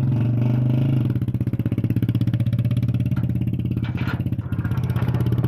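Small single-cylinder motorcycle engine idling after a long lay-up, steady for about a second and then running unevenly; the bike is known to misfire.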